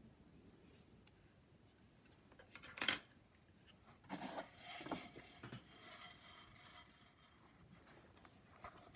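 Quiet handling sounds of small tools and the opened plastic body of a drone being worked on by hand: a sharp click about three seconds in, then a few seconds of scraping and rustling with small ticks.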